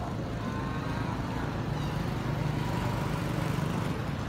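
A motor vehicle's engine running with a steady low hum, growing slightly louder in the middle.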